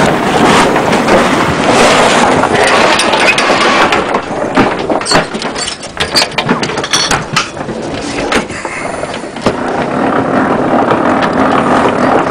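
Wind buffeting the microphone aboard a sailing yacht under way, a loud, steady rushing noise. A run of sharp knocks and clicks comes through the middle.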